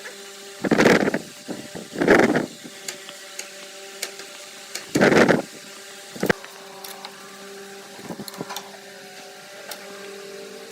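A woodworking power tool's motor running steadily, with three short, loud bursts of noise about half a second each, as it works wood: near the start, about two seconds in, and about five seconds in.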